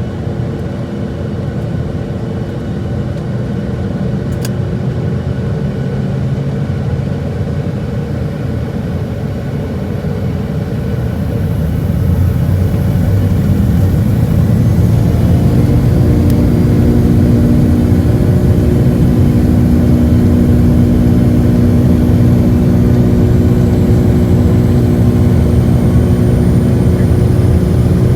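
Boeing 757-200 cabin noise: steady engine noise and a deep rumble that grow louder about twelve seconds in, with a steady drone joining a little later, as on the takeoff roll.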